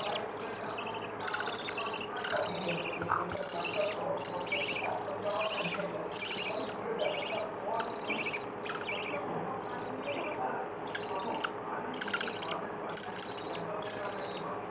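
Very young lovebird chicks calling: short, raspy, high-pitched cheeps repeated about twice a second.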